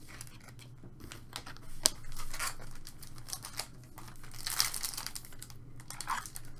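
Foil trading card pack crinkling in the hands as it is handled and torn open: scattered crackles, a sharp click just under two seconds in, and denser crinkling about four and a half seconds in.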